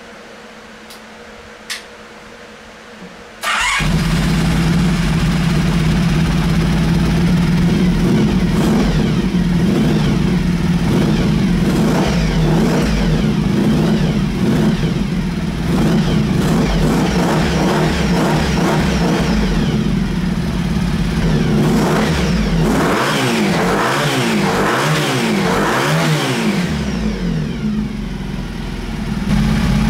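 Honda VF1000 V4 motorcycle engine starting about three seconds in, then running steadily and being revved up and down several times near the end before it cuts off. It runs through newly fitted mufflers.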